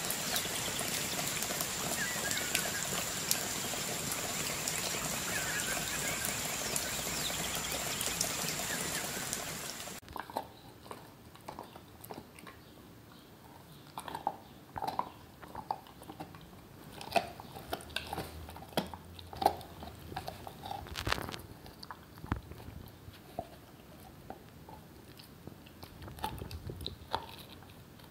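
A dog gnawing on a stick-shaped chew: irregular crunches and clicks of teeth on the chew. For the first ten seconds a louder steady background with short high chirps covers it, then stops suddenly.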